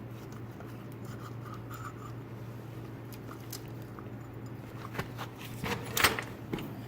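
Small parts and tools being handled during reassembly of a motorcycle's points cover: scattered light clicks and scrapes, with a louder clatter about six seconds in, over a steady low electrical hum.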